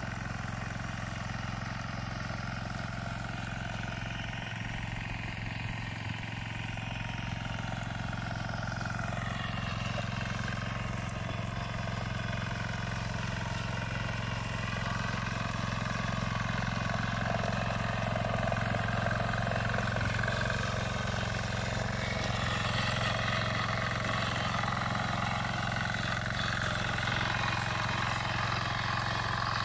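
Engine of a walk-behind tiller (patpat) running steadily while it tills soil. Its pitch wavers slowly, and it grows louder over the second half.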